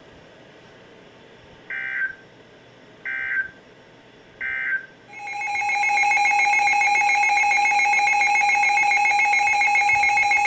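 Emergency Alert System tones: three short warbling data bursts of the SAME end-of-message code, about a second and a half apart. About five seconds in, the loud, steady two-tone EAS attention signal starts, announcing the next alert.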